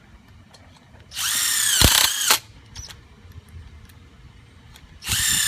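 Power drill driving self-tapping screws into aluminum railing spindle attachments: a motor whine runs for about a second, its pitch dipping near the end as the screw bites and seats, then a second run starts near the end.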